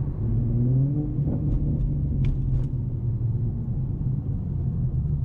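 Tuned 2014 Ford Mustang's engine and exhaust running with a steady low drone, its pitch rising over the first second or so as it speeds up. A few short clicks come around two seconds in.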